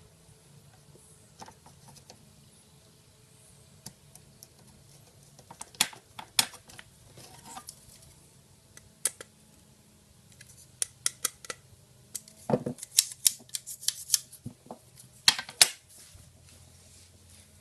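Sharp plastic clicks, snaps and rattles from the parts of a Subaru Forester dual cup holder being handled and fitted together. They come in scattered clusters and are busiest in the second half.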